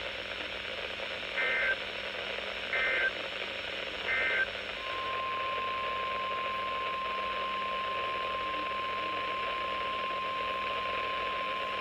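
Emergency Alert System activation on NOAA Weather Radio: three short bursts of the SAME digital header, then the steady 1050 Hz warning alarm tone, which begins about five seconds in and holds. It marks the start of a new alert broadcast. Steady radio hiss lies under it all.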